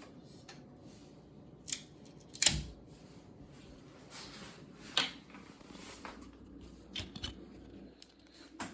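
A handful of short, sharp clicks and snaps from hard 3D-printed PLA parts being handled, about six in all, with the loudest about two and a half seconds in.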